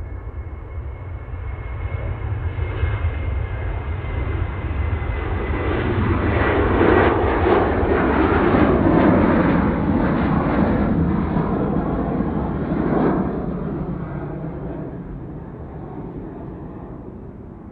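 Jet airliner's engines growing louder as the aircraft passes, loudest about seven to ten seconds in, then fading away. A steady high whine sits over the broad engine noise early on.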